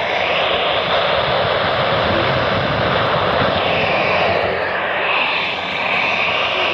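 Steady hiss of radio static from a NOAA Weather Radio receiver, with no voice coming through, dipping slightly in level about five and a half seconds in.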